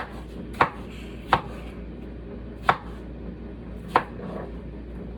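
Knife chopping cucumber on a cutting board: five sharp knocks at uneven intervals.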